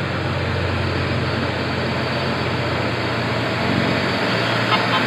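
Bus engine and road traffic with a steady low drone. Just before the end, the first short notes of a multi-tone telolet bus horn begin.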